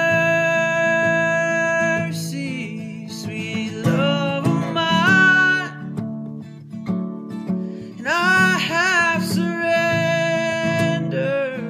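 A man singing over his acoustic guitar, holding long notes near the start and near the end, with bending sung phrases in between.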